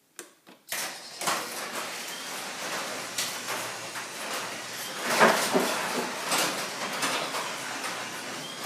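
Wayne Dalton iDrive garage door opener raising an older sectional garage door: a continuous mechanical running noise with clattering, starting about a second in and loudest around the middle.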